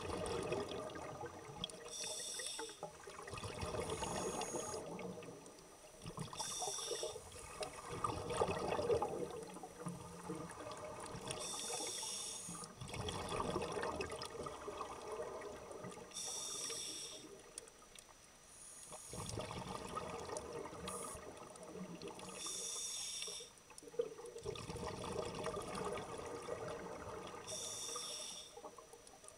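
Scuba regulator breathing underwater: a short hiss of inhalation through the demand valve, then a longer rush of exhaled bubbles, repeating about every five seconds.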